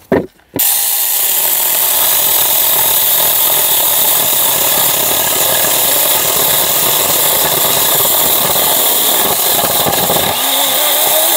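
Saker mini battery-powered electric chainsaw cutting through an old pallet plank: a brief burst at the start, then from about half a second in it runs steadily under load as the chain cuts the wood, with a steady motor whine.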